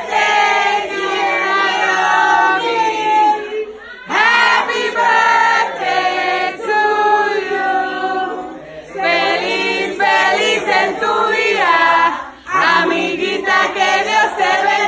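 A crowd of party guests singing a birthday song in Spanish together, in phrases with short breaks between them.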